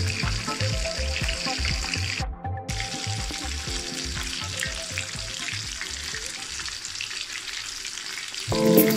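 Whole Indian mackerel deep-frying in hot oil in a wok, a steady sizzle of bubbling oil. The sizzle breaks off briefly about two and a half seconds in.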